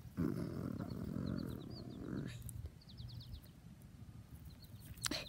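A child's voice making a low, rough growl, as a wolf figure's threat, lasting about two seconds. Short high bird chirps sound in the background throughout.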